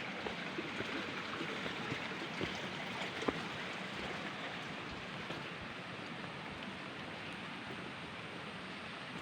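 Steady rushing hiss of water, like a mountain stream or falling rain, with a few faint ticks and taps over it.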